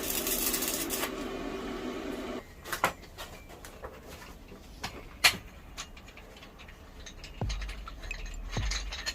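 Background music that cuts off about two seconds in, followed by scattered sharp metallic clinks and knocks of steel tube and tools being handled.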